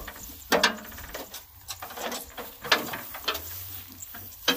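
A handful of sharp metal knocks and clicks, spaced irregularly, from hands working on a broken-down combine harvester's header around the cutting auger and cutter bar.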